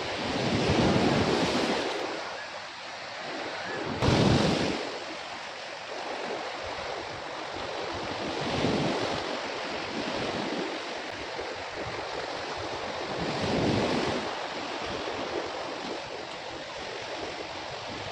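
Sea waves breaking and washing up the shore, surging every four to five seconds, the loudest surge starting sharply about four seconds in, with wind buffeting the microphone.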